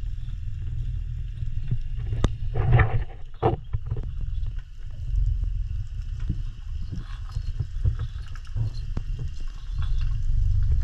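Muffled underwater rumble of water moving against the diving camera's housing as a freediver swims, with a few short swishes and clicks between about two and four seconds in.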